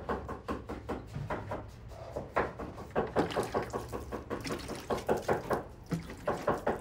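A cleaver chopping on a wooden board: rapid, even knocks, about four or five a second, with a brief pause about two seconds in.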